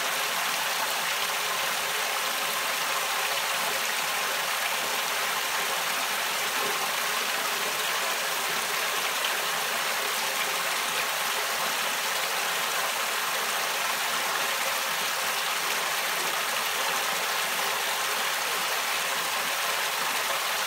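Water rushing steadily out of the perforated inlet pipe of a homemade fleece (Vlies) filter and splashing onto the filter fleece and the water pooled below it, with the pump running.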